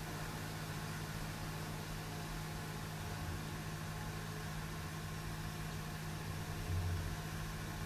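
Steady low machine hum over an even hiss, with a brief louder low rumble about seven seconds in.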